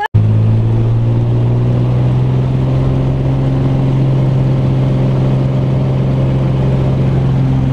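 Piston engine of a small high-wing propeller plane running steadily, heard from inside the cabin while the plane rolls along the runway.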